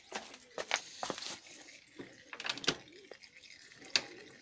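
A scattered series of short, sharp clicks and light knocks from tools and hands working around the motorcycle's engine, with one louder click near the end.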